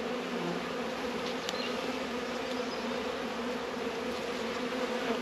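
Honeybees buzzing over an open hive and a brood frame held above it: a steady, even hum, not the roar of a queenless colony.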